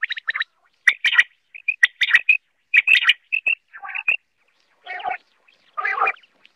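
Common quail calling: clusters of quick, sharp notes repeated about once a second, with a few lower, rougher calls in the second half.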